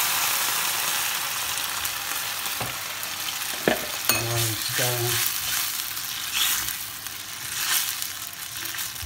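Beef stock hitting a hot pan of shallots and crushed peppercorns in oil and butter: a loud sizzle that gradually dies down as the liquid cools the pan. A spatula stirs through the sauce, with a couple of sharp knocks against the pan about four seconds in.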